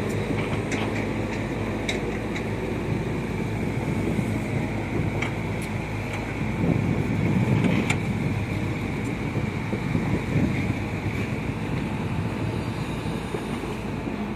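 Caterpillar hydraulic excavators working: a steady diesel engine rumble with a few sharp clanks, the engine sound swelling louder around seven and ten seconds in.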